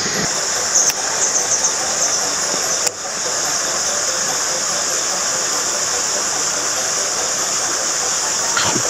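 Steady outdoor hiss with a high-pitched drone running over it. It breaks briefly about three seconds in, at an edit, and then carries on unchanged.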